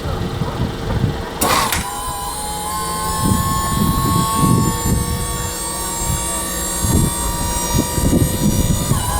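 Small engine running with an uneven low rumble. About a second and a half in, the sound changes abruptly and a steady whine joins it.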